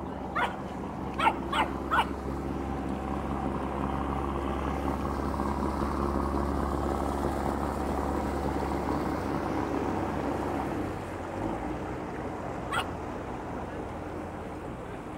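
A motor boat's engine running steadily as it passes, growing louder toward the middle and fading away after about eleven seconds. Four short, sharp calls stand out in the first two seconds, with one more near the end.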